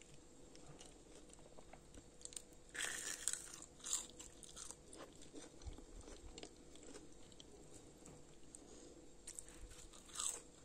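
Crunching bites into a crispy sesame-coated potato stick, then faint chewing. The loudest crunches come about three and four seconds in, and another comes near the end.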